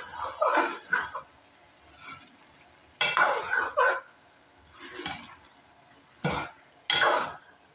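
A metal spoon stirring diced bottle gourd and minced meat (lauki keema) in a metal pot, in groups of short scraping strokes with brief pauses between.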